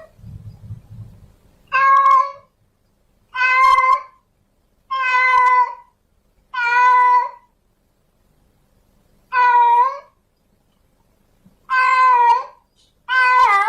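Domestic cat, a female in heat, meowing repeatedly to call a male: seven drawn-out meows, each a little under a second long, coming about every second and a half, with a longer pause midway.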